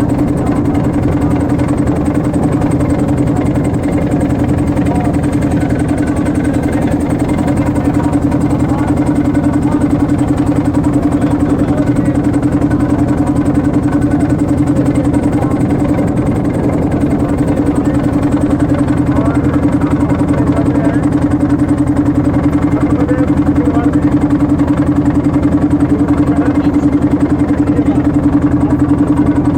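Motorboat engine running steadily at constant speed, a loud, unchanging drone.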